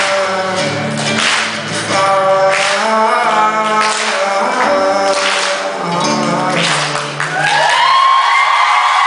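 Man singing a slow song with a strummed acoustic guitar. A little past seven seconds in, the song gives way to a long, rising held whoop.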